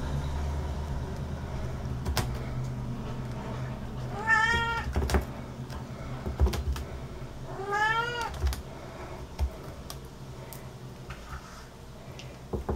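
British Shorthair kitten meowing twice, two short mews about three seconds apart, the second rising in pitch. A few soft knocks come between them and a low hum runs underneath.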